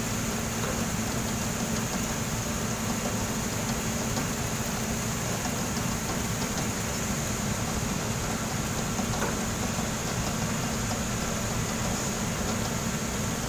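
Continuous ship unloader running steadily with its intake buried in soybean meal, discharging the cargo hold: a constant machine hum with a steady low tone and a high hiss.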